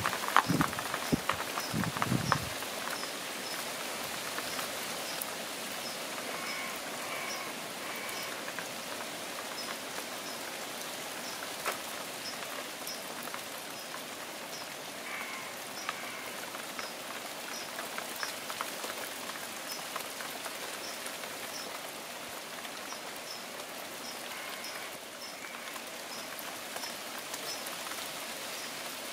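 Steady rain falling on garden foliage, with many individual drops pattering and ticking. A few heavy thuds sound in the first couple of seconds.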